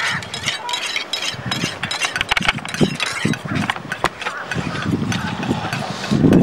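Background noise with frequent sharp, irregular clicks and knocks, and a low rumble that builds over the last second or two.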